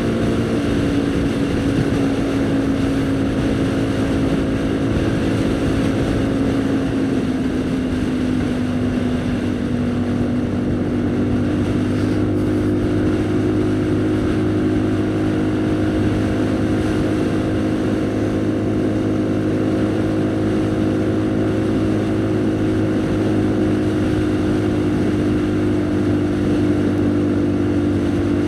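Haojue NK150 single-cylinder engine running steadily while riding, its pitch easing a little about nine seconds in and picking up again a few seconds later before holding steady.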